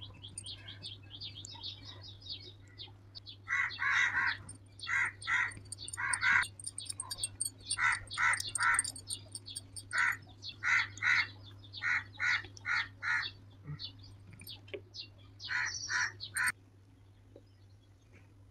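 Birds calling: loud, short, harsh calls in runs of two or three, over fainter high chirping in the first couple of seconds and a steady low hum. The calls cut off abruptly about two seconds before the end.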